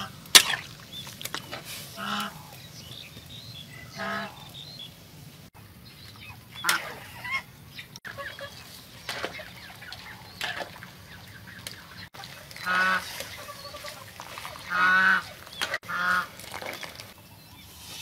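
Domestic fowl honking, about eight short calls spread a second or two apart, with faint clinks and scrapes of a metal spatula in a wok.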